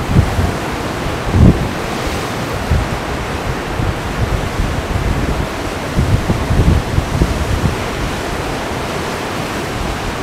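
Atlantic surf washing against shoreline rocks, a continuous rushing noise, with wind buffeting the microphone in low gusts about a second and a half in and again around six to seven seconds.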